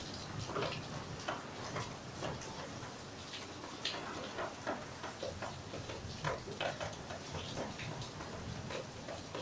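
Rain falling, with irregular drops ticking and tapping close by.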